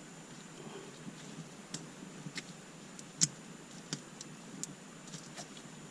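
Scattered light clicks and taps from hand work with small parts and tools, with one sharper click about three seconds in.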